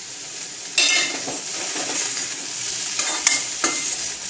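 Cut okra sizzling as it dry-fries in a kadai, stirred and tossed with a metal slotted spoon that scrapes and knocks against the pan about a second in and a few times near the three-second mark. It is sautéed uncovered on low heat without water, with salt just mixed in, so the slimy texture cooks off.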